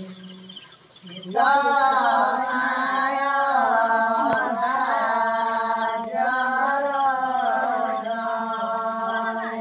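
Women singing a slow song in long held notes, starting about a second and a half in after a brief near-pause.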